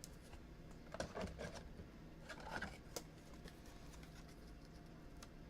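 Trading cards being handled: two short spells of rustling and scraping, then a sharp click about three seconds in.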